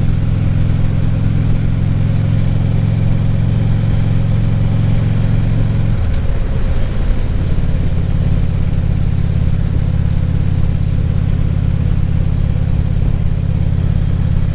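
2014 Harley-Davidson Ultra Classic Limited's V-twin engine running steadily on the road, heard from the rider's seat with a light rush of wind. About six seconds in, the engine note wavers briefly, then settles back to a steady run.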